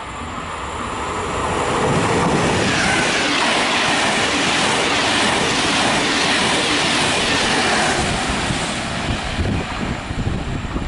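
Regional passenger train running past on the station tracks, its wheels rumbling and hissing on the rails. The sound swells over the first two seconds, holds steady for about six, then eases off.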